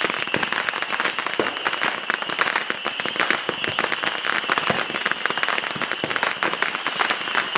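Ground-level fireworks going off in a continuous barrage of rapid sharp cracks and crackling, many a second without a break, over a steady high hiss.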